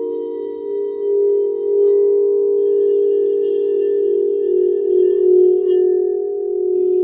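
Quartz crystal singing bowls ringing with several sustained, overlapping tones that pulse in a steady wobble. They are played with a crystal wand. A lower bowl tone joins near the end.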